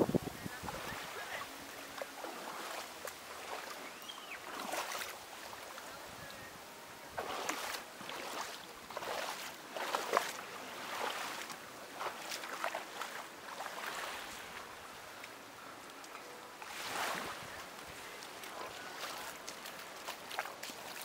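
Small sea waves washing onto a beach, swelling and falling back every few seconds.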